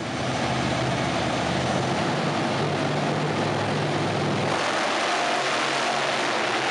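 Monster truck engines running hard as two trucks race, a loud, dense mechanical noise; the low engine drone eases off about four and a half seconds in.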